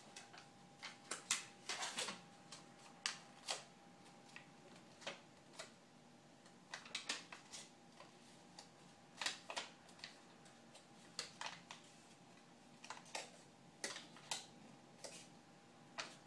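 Crinkling and crackling of a white wrapper handled by a toddler's hands: irregular clusters of short, sharp clicks and crackles, with pauses between.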